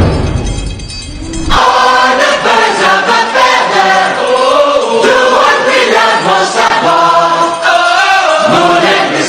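Music with a choir singing in a solemn, chant-like style. It enters about a second and a half in, after a bass-heavy passage fades out.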